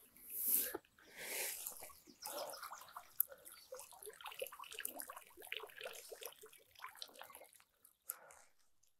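A wet padded carp unhooking mat being sloshed in lake water, then lifted so that water pours and drips off it into the lake. A couple of splashes come first, then a long patter of drips that thins out near the end.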